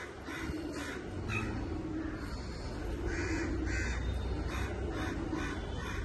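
Birds calling: a series of about nine short calls, some in quick pairs, over a low steady rumble.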